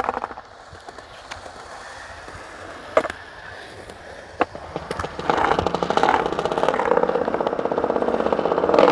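Skateboard wheels rolling over concrete, with a flat-spotted wheel clunking on every turn. A few single clicks come in the first half, then from about five seconds in the rolling gets louder, with a rapid, even clatter.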